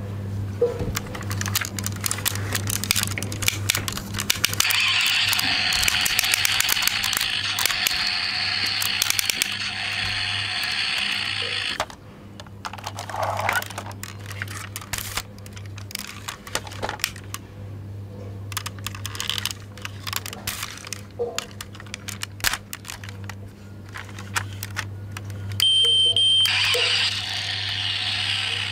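A JIAYE toy crane truck being handled: many small clicks and rattles as its boom and parts are moved by hand. About five seconds in, a steady rasping noise runs for about seven seconds. A low hum is heard throughout.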